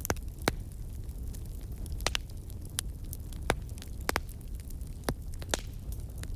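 Campfire burning: a steady low rumble of flames with sharp, irregular crackles and pops of burning wood, about ten in a few seconds.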